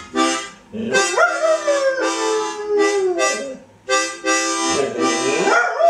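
A dog howling along to harmonica chords. One long howl rises about a second in and slowly falls away, and a second howl rises near the end.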